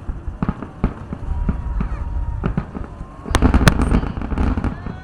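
Aerial fireworks going off in a rapid string: many sharp cracks over low rumbling booms, heaviest about three and a half seconds in.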